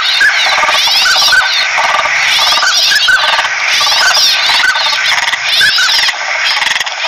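A flock of northern pintails calling: many overlapping high calls that rise and fall, with short whistled notes scattered all through.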